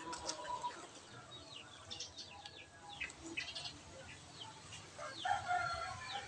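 Birds chirping in many short, quick falling notes, with clucking from a chicken about five seconds in.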